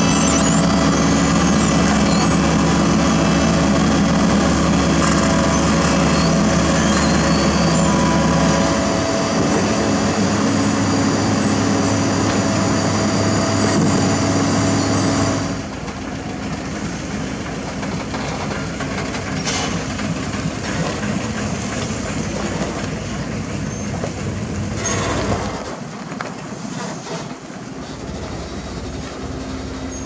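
Sumitomo HA60C asphalt paver's engine running loud and steady as it moves on its crawler tracks, with a rattle that sounds like a train. About halfway through the sound cuts to a quieter heavy truck engine running, with one brief louder stretch near the end.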